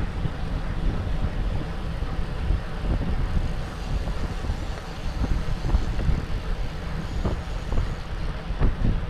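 Wind buffeting the microphone of a camera mounted on a racing bicycle moving at about 25 mph, a steady low rumble mixed with tyre-on-road noise, broken by occasional short knocks.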